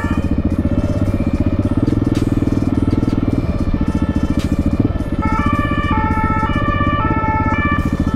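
KTM 690 SMC R single-cylinder engine running at low road speed through an exhaust that is too loud, with a steady rapid pulsing. Music plays over it, a synth melody clearest from about five seconds in.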